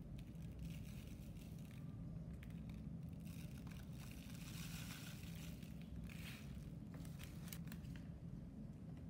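Plastic bags crinkling and rustling in bouts as brown sugar is poured from its bag onto a metal spoon and tipped into a zip-top bag. A few light clicks come near the end, all over a steady low hum.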